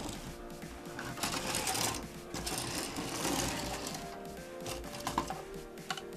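Hard plastic Minipla Cube Whale model-kit figures clicking and rattling as they are handled and turned over, with a few sharp clicks near the end, over background music.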